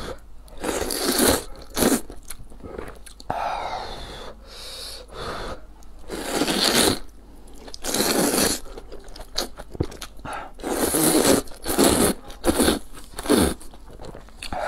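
Close-miked eating of wide noodles in spicy broth: repeated wet slurps as the noodles are sucked into the mouth, with chewing between them.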